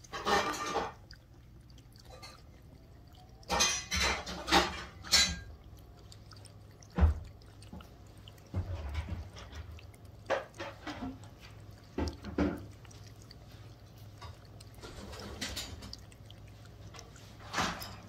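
A Pomeranian mother licking her newborn puppies: short, irregular bursts of wet licking and slurping.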